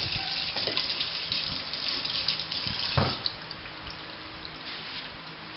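Kitchen tap running into a stainless steel sink, water splashing over a hand being rinsed. About three seconds in there is a knock and the water stops, leaving only a few faint clicks.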